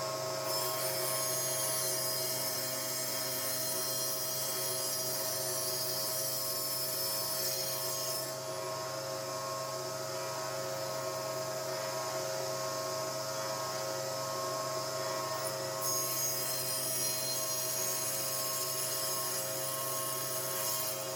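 Fine-toothed hand saw cutting a dovetail in hardwood, its blade rasping back and forth in the kerf while riding against a magnetic dovetail guide block, over a steady hum.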